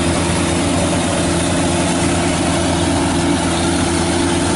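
Engines of a rice combine harvester at work cutting rice and of a tracked rice-sack carrier running beside it: a steady, unchanging drone.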